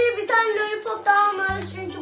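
Music: a song with a high sung vocal holding notes over steady low bass notes.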